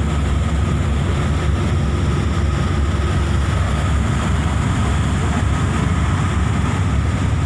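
Steady low rumble of a fast passenger ferry under way: engine drone mixed with the rush of wind and water, with a faint steady whine above it.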